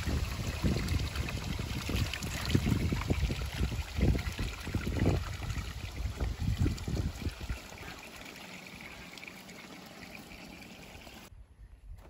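Spring water trickling from a spout into a stone basin, with splashing and dripping as water is scooped up by hand in the first few seconds. Irregular low thumps sound over the water early on, and the sound drops away sharply near the end.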